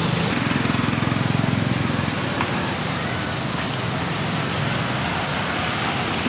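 Steady street noise with a low traffic rumble.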